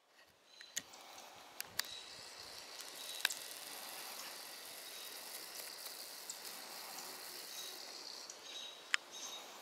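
American robins giving short, high alarm calls at a perched great gray owl, over a steady high hiss of outdoor ambience, with a few sharp clicks scattered through; the sound fades in over the first second.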